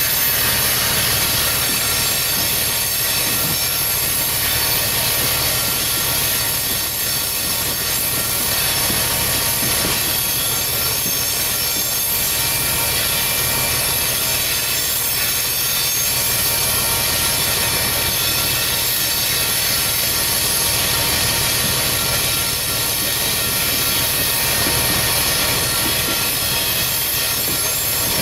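Loaded coal train's freight cars rolling steadily along the rails, wheels running with a constant high squeal over the rumble.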